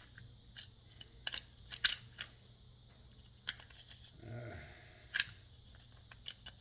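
Screwdriver prying brass terminals out of old light switches: irregular sharp clicks and snaps of metal against plastic, with a short low grunt about four seconds in.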